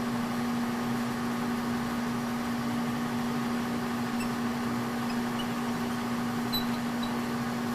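Steady electric machine hum, even and unchanging, with one strong low tone: a shop machine running idle between cuts.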